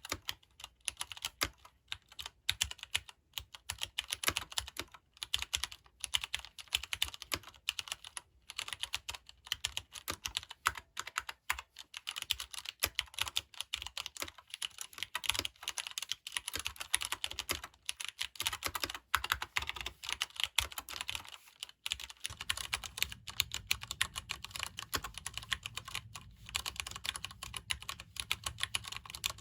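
Leopold FC750R PD mechanical keyboard with Cherry MX Brown switches being typed on steadily: a rapid, irregular stream of keystroke clacks from the non-clicky tactile switches. A faint low hum comes in about three-quarters of the way through.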